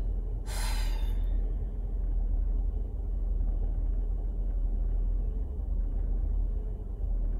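Steady low rumble of a car's engine and road noise heard inside the cabin while driving, with a single breath from the driver about half a second in.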